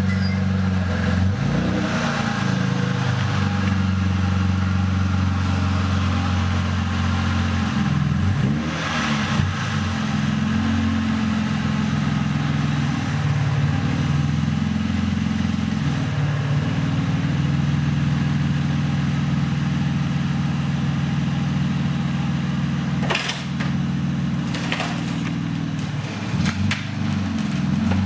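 Toyota Supra engine idling steadily on a test start after an oil catch can was fitted, running properly, with a few brief rises and falls in pitch. A few sharp knocks near the end.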